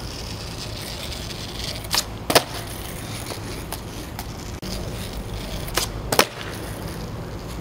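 Skateboard rolling on asphalt, then the snap of the tail popping a kickflip and the clack of the landing about half a second later. Two earlier sharp knocks come about two seconds in, the second of them the loudest sound.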